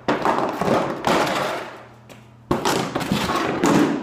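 Two loud bursts of rushing, hiss-like noise, each starting suddenly and fading out over about a second and a half, the second coming about half a second after the first has died away.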